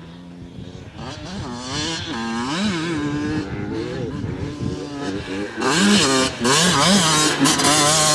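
Motocross dirt bike engine revving up and down as it rides the track, pitch rising and falling with each throttle and shift, growing much louder about two-thirds of the way in as it comes close.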